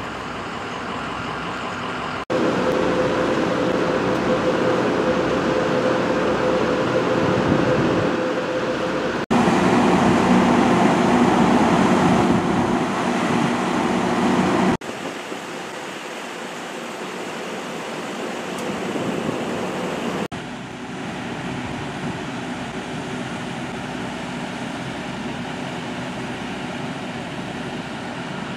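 Large emergency vehicles' engines running steadily, heard in several short clips that change suddenly, the loudest in the middle stretch with a steady hum.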